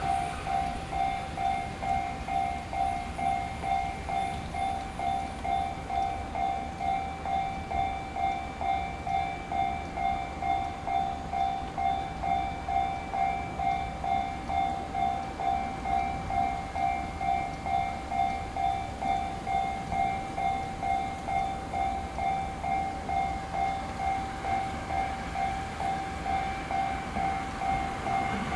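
Japanese level-crossing warning bell ringing steadily at about two strokes a second, each stroke a bright two-tone ding.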